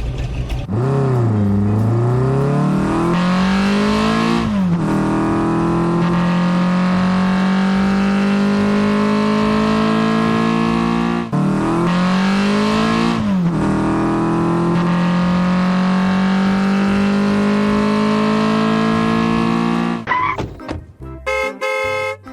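Car engine revving sound, likely a toy's electronic sound or an added effect: the pitch dips, climbs and then holds steady, and the cycle starts over once about halfway through. Near the end it gives way to short choppy tones.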